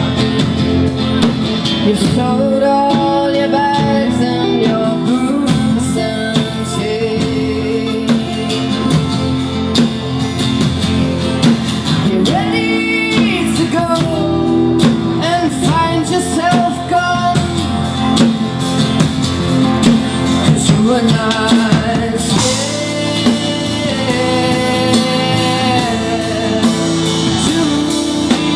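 Live band music: a woman singing over a strummed acoustic guitar, with electric bass and drum kit.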